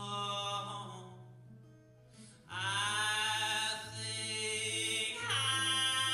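A male voice singing long, drawn-out notes over an acoustic guitar in a live solo performance: several held vocal phrases, each sustained for a second or more.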